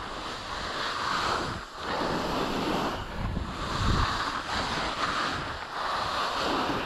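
Skis hissing over firm, unsoftened snow in a run of turns, the rush swelling and fading every second or so, with wind buffeting the microphone.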